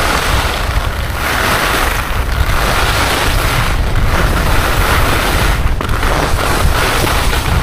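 Wind buffeting the microphone during a fast downhill ski run, with the skis hissing and scraping over snow in surges that swell and fade every second or two.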